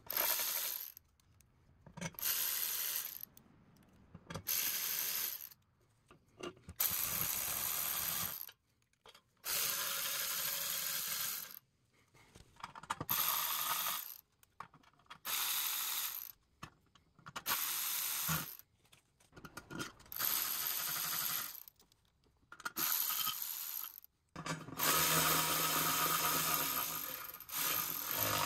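Ratchet wrench clicking in repeated bursts of one to two seconds with short pauses between, as the oil pan bolts on an LS engine are run down and tightened.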